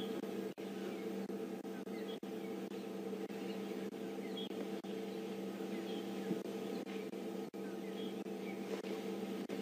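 A steady low hum made of several held tones, with faint, scattered high bird chirps over it.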